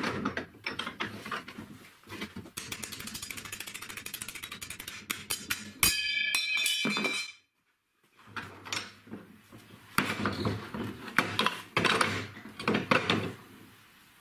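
Metal knocking and clattering as an old car suspension strut is handled and worked on in a bench vise, with a short metallic ringing about six seconds in.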